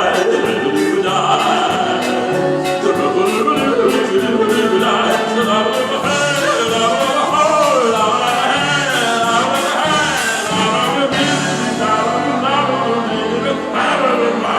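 Music: a slow, wordless vocalise melody with gliding pitch over accompaniment.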